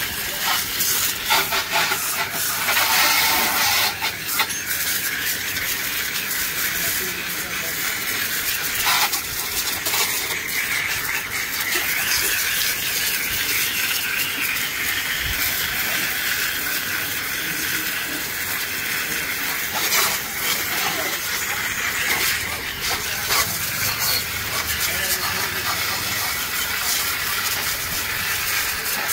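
Water spraying onto a muddy motorbike as it is washed: a steady hiss, with occasional sharper splashes.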